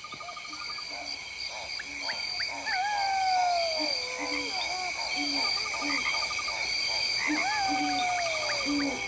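Night-forest ambience of animated wildlife sound effects. A steady insect drone runs under short repeated croaks and a quick trill, and a long falling whistled call sounds twice, all fading up slowly.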